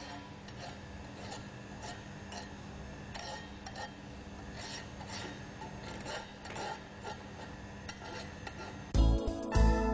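Hand file rasping across the steel rail end in a series of short, uneven strokes, deburring it after grinding. Near the end there is a loud bump and music comes in.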